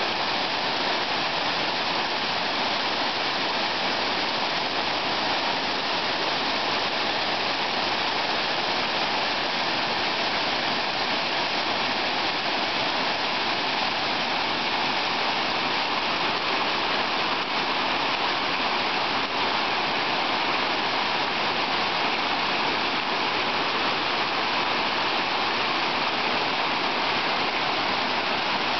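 Waterfall pouring over rock ledges into a pool: a steady, unbroken rush of falling water.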